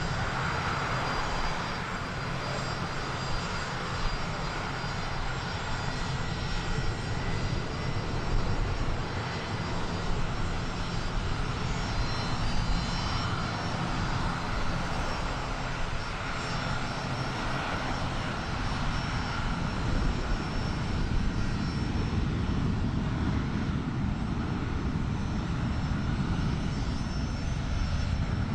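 Steady jet airliner noise across an airport apron: a continuous low rumble with a thin, steady high whine over it.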